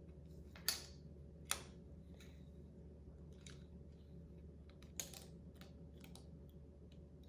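Plastic LEGO bricks being handled and pressed together: a scatter of faint ticks, with three sharper clicks standing out.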